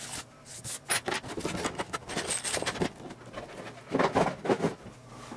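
Packaging being handled: a plastic bag crinkling and a moulded-pulp cardboard tray rubbing and scraping, with light irregular clicks as small parts are moved.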